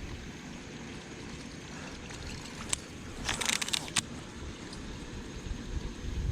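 Steady low rumble of moving air and river water around a kayak, with a brief crackling hiss and a couple of sharp clicks about three to four seconds in.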